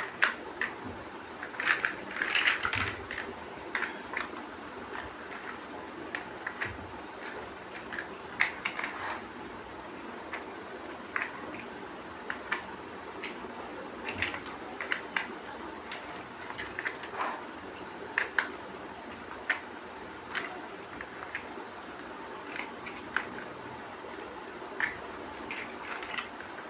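Plastic building bricks being handled and pressed together: irregular sharp clicks and taps, some in quick clusters, over a steady low hiss.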